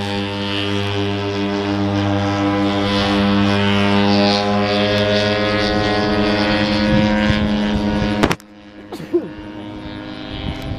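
A small engine runs at a steady, unchanging pitch. It cuts off abruptly about eight seconds in, and a quieter engine drone follows.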